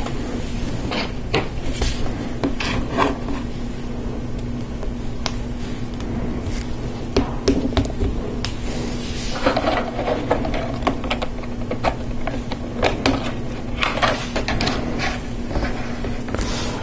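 Plastic LEGO Technic parts clicking and knocking as they are handled and fitted together, a run of irregular sharp clicks and rattles over a steady low hum.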